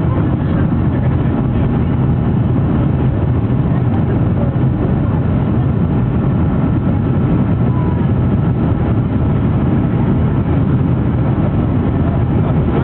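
Steady jet engine and airflow noise of an airliner in flight, heard from inside the passenger cabin: an even, deep rumble with a hiss above it.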